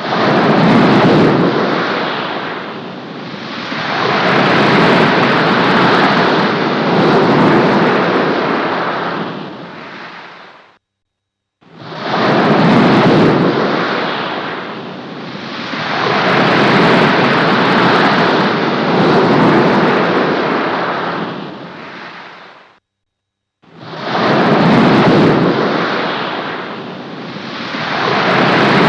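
Thunderstorm sound effect: thunder rolling and rumbling in long swells. The same clip of about eleven seconds plays three times, with a brief silence between repeats.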